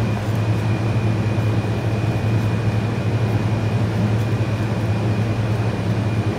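Steady low mechanical hum with a faint, thin high whine above it.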